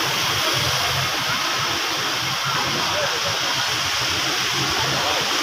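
Steady hiss of an outdoor crowd, with faint voices mixed in.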